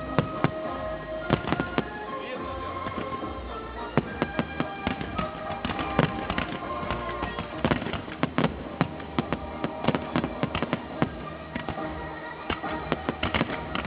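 Fireworks display: many sharp bangs and crackling reports in quick succession, coming thicker from about four seconds in, with music playing underneath.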